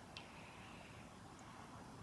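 Near silence: faint background hiss with a single soft tick shortly after the start.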